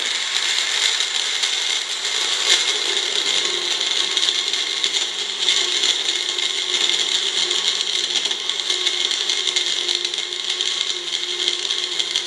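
Magic Bullet personal blender running continuously at full speed, its motor and blade blending almond milk, frozen blueberries and ice cubes in the cup.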